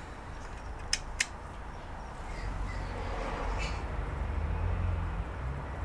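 A DC power plug pushed into a cable modem's circuit board, two sharp clicks about a second in, followed by a low steady hum that grows louder.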